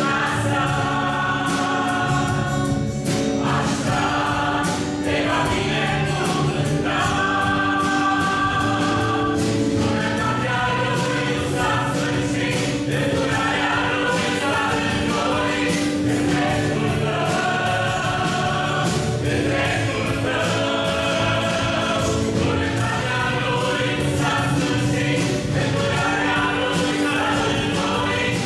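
Choir of women's and men's voices singing a Christian worship song in harmony, over instrumental accompaniment with a held low tone and a steady beat.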